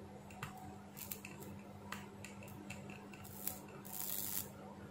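Faint scattered clicks and crackles from a multimeter probe touching a solder joint on the input side of a live PS2 switch-mode power supply board, with a brief hiss about four seconds in, over a faint steady hum. The joint is sparking and needs resoldering.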